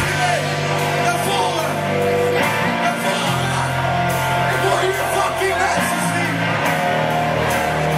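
Live rock band playing: electric guitars and a lead singer over steady low notes that change every second or two, with regular sharp hits on the beat. Heard from within the audience in a large hall, with some shouting.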